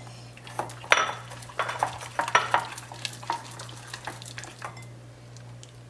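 Utensil stirring a glue-and-borax glitter slime mixture in a bowl, with irregular clinks and scrapes against the bowl that thin out near the end.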